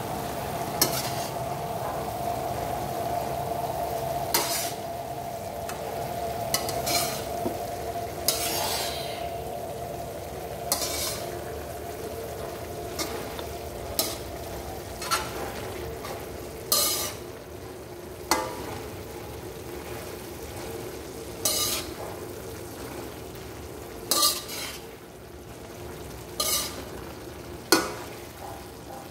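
String beans and ground pork sizzling in a metal wok while a metal spatula stirs them, scraping and clanking against the pan about every one to three seconds.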